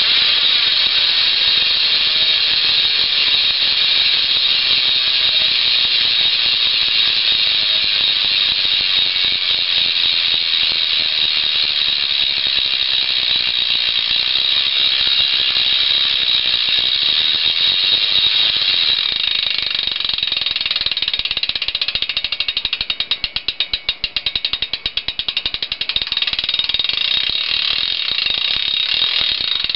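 G-Sport Ratchet cassette hub on a BMX bike freewheeling, its pawls clicking over the ratchet ring so fast they merge into a loud, continuous high-pitched buzz. In the last several seconds the spin slows and the buzz breaks up into separate rapid clicks.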